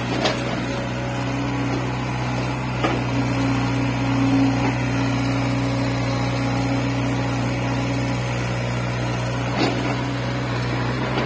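Crawler excavator's diesel engine running steadily as the machine digs, with a higher steady tone coming in about a second in and dropping out about eight seconds in, and a few faint knocks.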